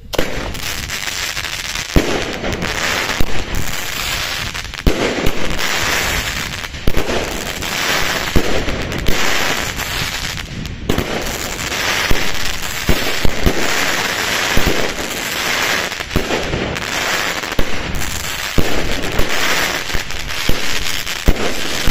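Argento Expression firework battery firing shot after shot, each launch a sharp report, under a continuous dense crackling of its gold crackle (Goldcracker) stars.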